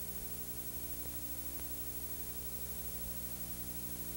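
Steady low electrical hum with a stack of overtones, under a constant hiss: the noise floor of the recording, with nothing else happening.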